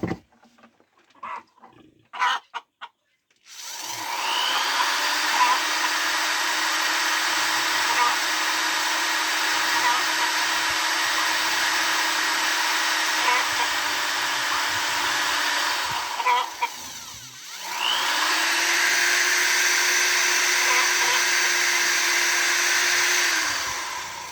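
Small electric drill boring into a wooden part, running steadily for about thirteen seconds, stopping briefly, then running again for about six seconds. Its pitch rises as it spins up and sinks as it winds down each time. A few light clicks come before it starts.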